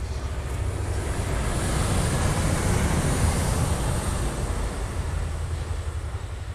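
NS Sprinter electric multiple unit passing close by. The rush of its wheels on the rails swells to a peak about three seconds in and fades as it moves away, over a low rumble of wind on the microphone.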